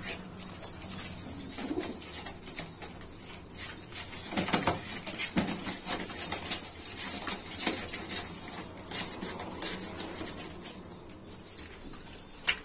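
Two male pigeons fighting: bursts of wing flapping and wing slaps, irregular and busiest in the middle.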